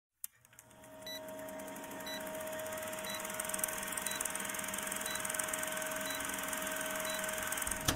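Old-film countdown leader sound effect: a film projector's steady whir and crackle with a short beep once a second, about seven beeps, the noise slowly growing louder.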